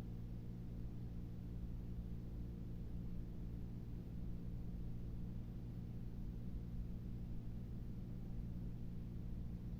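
A steady low drone made of several fixed low tones, unchanging throughout.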